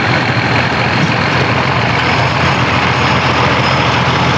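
County 1884 tractor's diesel engine running steadily with a low, even note, the tractor standing still at the end of its pull.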